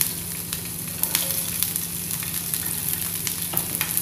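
Capsicum and paneer frying in a little oil on a hot tawa: a steady sizzle flecked with small crackles, over a steady low hum.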